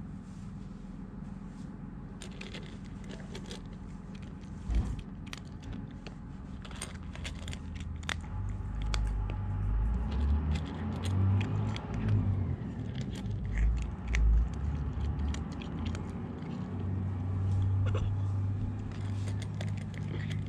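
A kitten crunching dry cat kibble out of a stainless steel bowl: many short crisp crunches and clicks of kibble against the metal, starting about two seconds in. A low rumble runs under the chewing through the second half.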